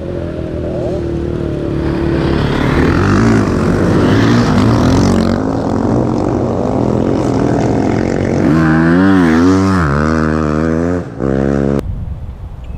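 Motocross dirt bike engines running hard, their pitch rising and falling as they rev through the gears. The sound cuts off abruptly near the end.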